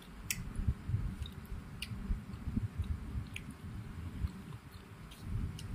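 Close-up chewing of a soft, cheesy sweet-corn and mozzarella snack: irregular soft, wet mouth sounds, with a few light clicks, likely the metal spoon against the foil tray.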